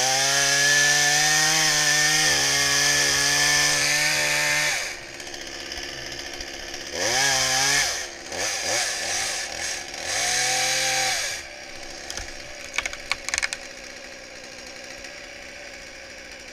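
Two-stroke chainsaw running at high revs for about five seconds, then blipped up and down twice and left running more quietly.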